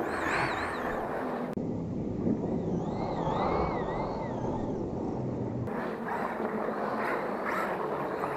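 Electric motors of RC drift cars whining, their pitch rising and falling again and again as the throttle is worked, over steady noise from the cars and track.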